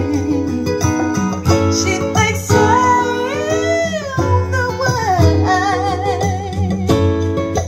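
A song with guitar and a singing voice, played back through a Denon PMA-480R integrated amplifier and a pair of bookshelf speakers. A long sung note is held and then slides down about halfway through.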